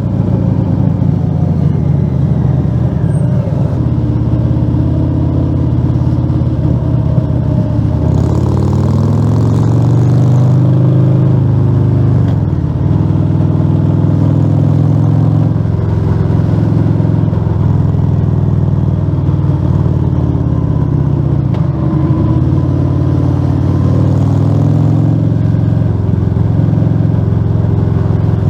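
Harley-Davidson Fat Bob 114's Milwaukee-Eight V-twin running loud through Rinehart slip-on mufflers with the dB killers removed, under way on the road. The engine note rises and falls several times.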